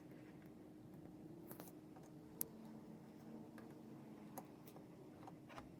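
Near silence: faint room tone with a low steady hum and a few faint, short clicks, the sharpest about two and a half seconds in.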